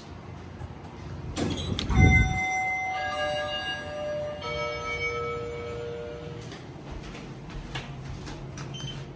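Schindler 3300 elevator's arrival chime: three ringing chime notes, each lower than the last, overlapping and fading out over about four seconds, starting about two seconds in. A couple of thumps come just before the chime, and a low steady hum follows it.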